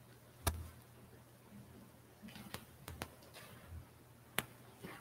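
Faint footsteps and small knocks of a person walking up to an altar: about five sharp, irregular clicks, the loudest about half a second in and another near the end, over a low steady hum.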